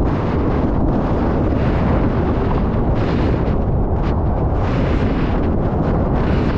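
Strong wind buffeting the camera's microphone, a steady loud rumble, over the rush of water along the hulls of a Formula 18 catamaran sailing fast.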